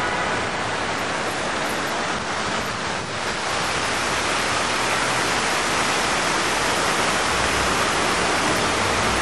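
Fountain water rushing and splashing steadily, rising a little in level about three and a half seconds in.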